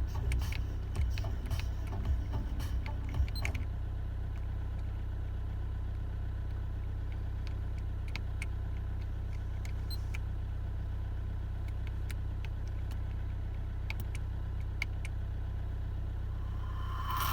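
Steady low hum of a car idling, heard inside the cabin, with a run of small clicks and taps in the first few seconds and a few single clicks later.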